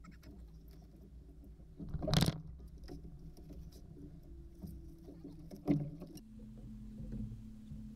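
Electric trolling motor humming steadily at low speed, its hum shifting to a steadier, slightly higher tone about six seconds in as it changes speed. Two brief loud rushes of noise cut in, at about two seconds and near six seconds.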